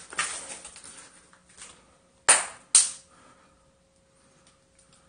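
Two sharp bangs about half a second apart, each with a short ringing tail. They follow a fading scuffle and are followed by a faint steady tone.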